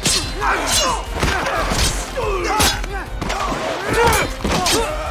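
Fight-scene sound effects: a string of sharp punch and kick impacts, roughly one a second, mixed with grunts and shouts of effort from the fighters.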